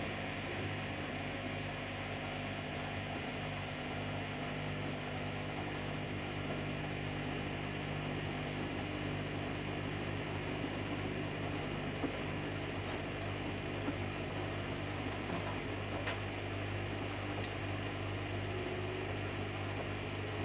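Samsung Eco Bubble washing machine running a colour wash cycle: a steady motor hum with a few faint clicks.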